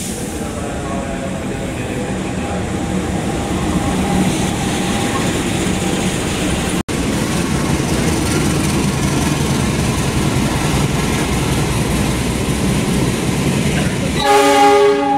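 A diesel-hauled passenger train passing along the platform: the locomotive's engine hum and the train's rumble build up and stay loud, breaking off for an instant about halfway through. Near the end a loud train horn blast sounds.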